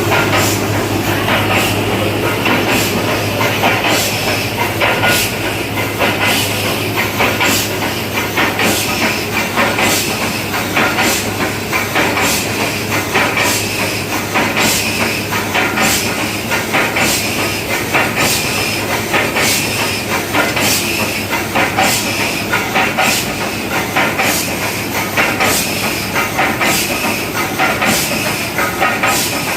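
Steam-hauled Nilgiri mountain toy train running, with an even beat of sharp clicks about twice a second over a steady hiss and a low hum.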